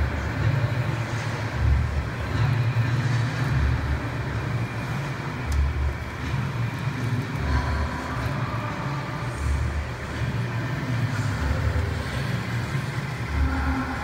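Muffled program music, mostly its pulsing bass beat, heard through the rink's glass barrier.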